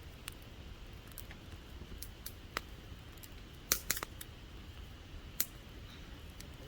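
Campfire wood burning, with sparse, irregular sharp crackles and pops; the loudest cluster comes a little before the middle.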